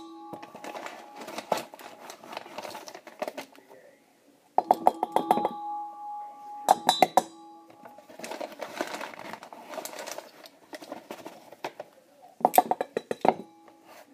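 A metal spoon stirring and clattering against a stainless steel mixing bowl, mixing cornstarch. Quick runs of clinks set the bowl ringing, with scraping between.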